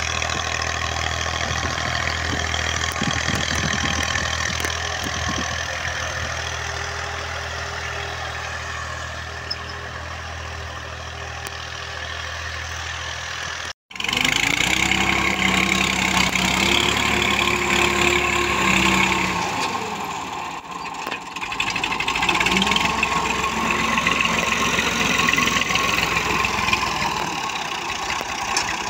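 Diesel tractor engine running steadily. After a sudden cut about halfway, the engine's pitch climbs, holds for a few seconds, drops, then climbs again.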